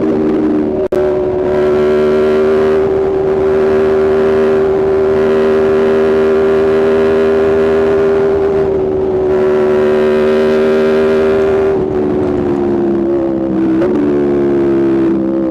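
Aprilia RSV4 V4 engine through a Spark aftermarket exhaust, running at a steady, held engine speed under way, with a brief break in the sound about a second in and the pitch easing down slightly near the end.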